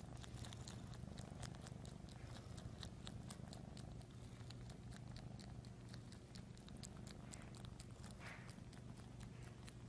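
Domestic cat purring close up: a steady, faint, low purr, with many quick small clicks over it.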